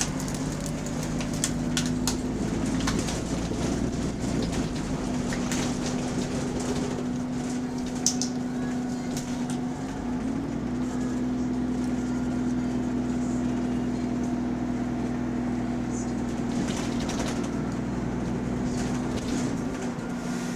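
A bus's diesel engine running steadily, with an exhaust leak, heard from on board, with scattered light rattles. About ten seconds in the engine tone shifts briefly in pitch, and the low end is stronger afterwards.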